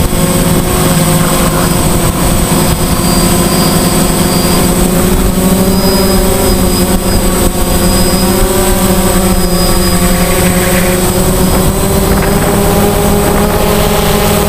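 DJI Phantom quadcopter's motors and propellers, heard up close from on board: a loud, steady multi-tone buzz with a thin high whine, its pitch wavering slightly as the drone flies.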